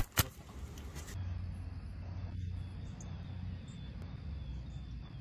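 Two sharp knocks right at the start, then quiet outdoor background: a low steady rumble with a faint thin high chirping.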